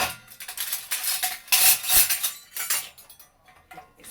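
Metal dishes and utensils clinking and clattering as they are handled and set down, a quick run of knocks that is busiest and loudest in the middle.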